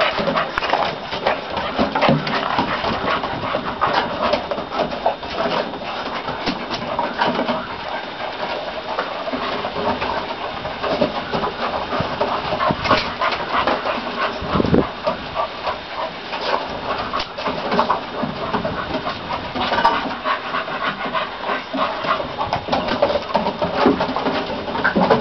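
Boston terrier puppies playing and wrestling, panting, with a steady run of small scuffs and clicks.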